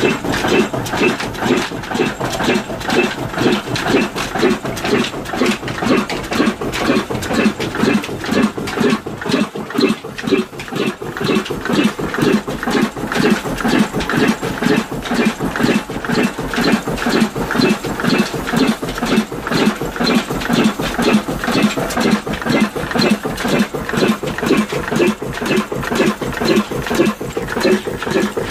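Old single-cylinder slow-speed diesel engine ('desi black engine') running steadily with a regular exhaust beat of about two a second, its large flywheel driving a flat belt.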